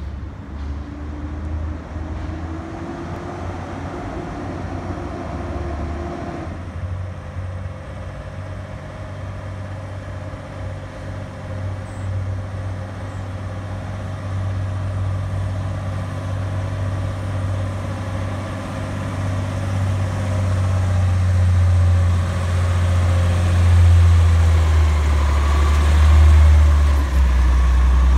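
LNG-fuelled Amrep automated side-loader garbage truck's engine running under load as the truck climbs a steep hill, a steady low hum that grows louder as it approaches and pulls alongside.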